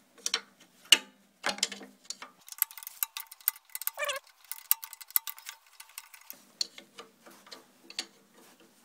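Ratchet wrench clicking in quick runs as 13 mm nuts on a generator's alternator housing are spun off, with a brief squeak about four seconds in.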